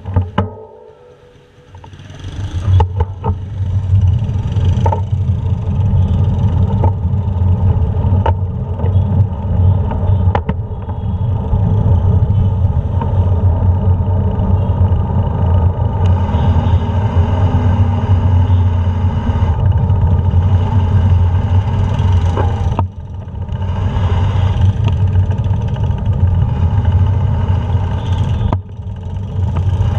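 Steady, loud rumble of a ride through town streets, heard from a camera on the moving vehicle: wind and road noise building about two seconds in as it pulls away, with brief dips later on.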